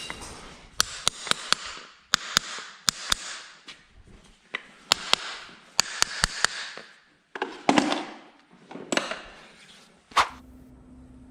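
Hoof horn being trimmed with hand tools: groups of sharp snapping clicks over rasping scrapes of a blade on hoof. A faint steady hum takes over near the end.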